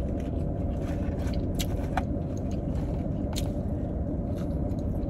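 Steady hum of a car idling with its air conditioning running, heard from inside the cabin. Over it come a few sharp crunches and clicks as she bites and chews fried chicken.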